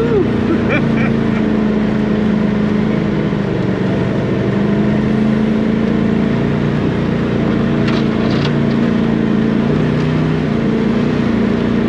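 A Polaris General side-by-side's engine running steadily at low, even revs while climbing a rocky trail, with a couple of faint clicks about eight seconds in.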